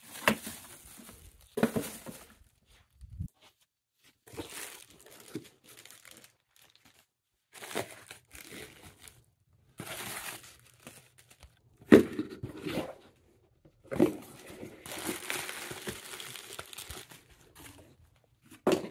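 Plastic bags and plastic air-pillow packing crinkling in irregular bursts as they are handled, with a few sharp thumps of packages being moved or set down.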